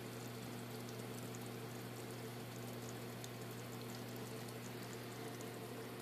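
Aquarium waterfall running: water falling and splashing steadily into the tank, with a steady low hum underneath.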